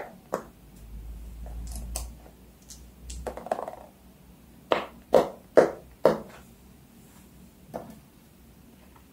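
Fidget toys being handled: a run of sharp pops and clicks, with a patch of rubbing and handling noise about one to four seconds in and a quick cluster of four pops about five to six seconds in.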